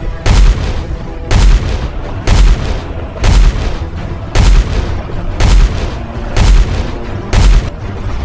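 Eight deep, heavy booms at a steady pace of about one a second, laid over a dramatic music bed, as a soundtrack effect for elephants marching and the ground trembling.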